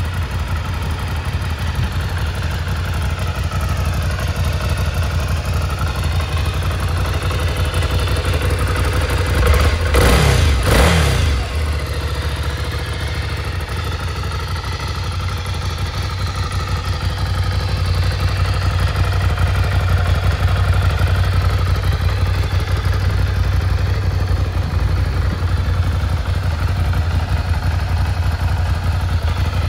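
Ducati Scrambler Icon's air-cooled 803 cc L-twin idling steadily, with one quick blip of the throttle about ten seconds in that rises and falls back to idle.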